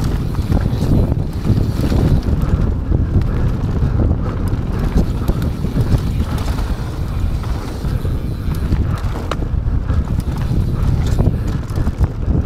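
Wind buffeting the microphone over the steady low rumble of a mountain bike rolling down a dirt trail, with a few scattered clicks and rattles from the bike.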